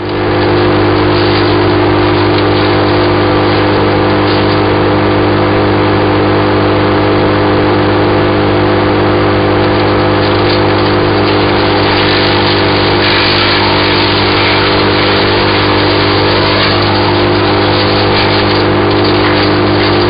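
BearCat CH8993H wood chipper running steadily at full speed, its engine note constant while balsam fir and spruce brush is fed in. A louder crackle of branches being chipped swells now and then, most clearly past the middle and near the end.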